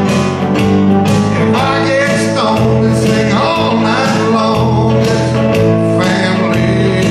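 Live country song: a man singing over guitar and a Roland XP-30 synthesizer keyboard, with sliding vocal or instrumental lines near the middle.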